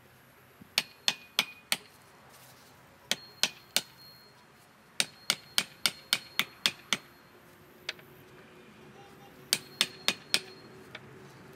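A hammer driving nails in quick runs of sharp metallic blows: four, then three, then eight, then four. Each blow leaves a brief ring.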